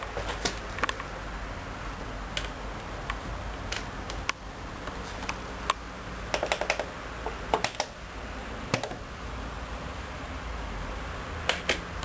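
Studio WM26AAA washing machine running with newly replaced drum bearings: a steady low hum with irregular light clicks and taps, some coming in quick little clusters.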